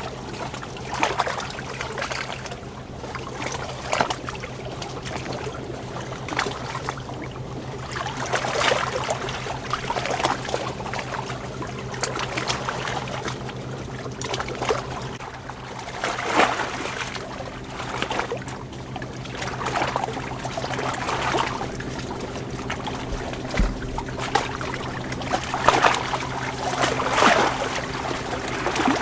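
Water splashing and trickling in irregular surges, rising and falling every second or two, over a steady low hum.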